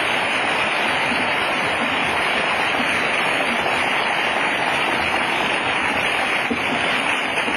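Lecture audience applauding steadily.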